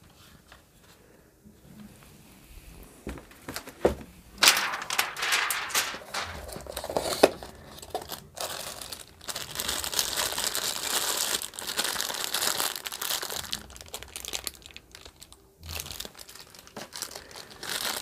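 Clear plastic bag around a coiled cable crinkling as hands handle and work at it. The crinkling starts after a sharp snap about four seconds in, runs dense for about ten seconds, stops briefly, then picks up again near the end.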